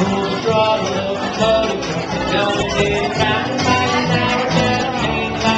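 Jug band playing an old-time song live, with acoustic guitar plucked to a steady beat under the melody.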